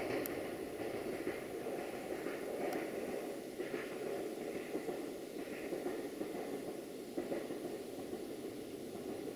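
Rumble of a train going away along the track, slowly fading, with a few faint wheel noises over it.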